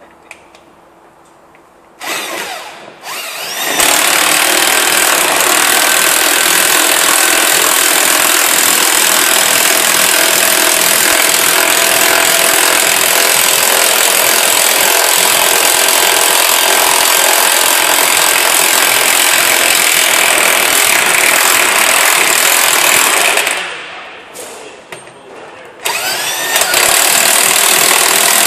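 Power tool motor running at full speed with a steady, loud whirr. It spins up about two seconds in, cuts out near the end and starts up again.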